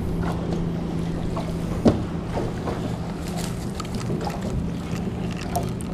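A steady low hum with wind and water noise, and one sharp knock about two seconds in.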